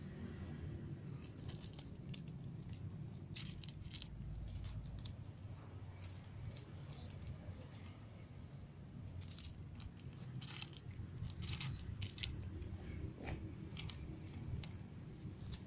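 A cat chewing dry kibble, with irregular sharp crunches coming thick and fast in the second half, over a low steady background rumble.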